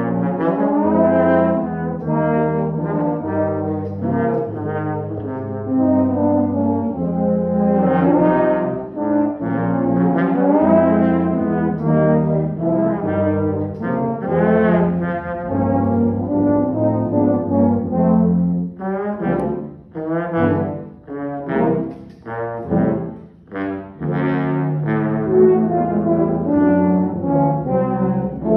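Low brass playing, trombone among the horns: long held notes for the first two-thirds, then shorter, separated notes with brief gaps.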